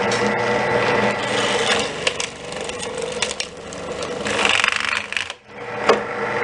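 Drill press running, its bit boring into the plastic Xbox logo button of an Xbox controller: a steady motor hum under rasping, grinding plastic and scattered clicks, with a brighter scraping stretch about four seconds in and a brief dip just after five seconds.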